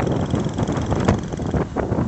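A road vehicle under way, with heavy wind buffeting the microphone.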